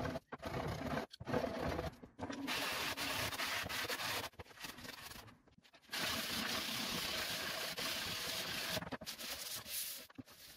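Hand sanding of beech and iroko with a sanding block: sandpaper rasping back and forth over the wood in runs of a second to a few seconds, with short pauses between them.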